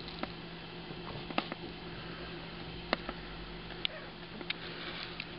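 A Jack Russell Terrier puppy moving about, with scattered sharp clicks and ticks about once a second over a steady low hum.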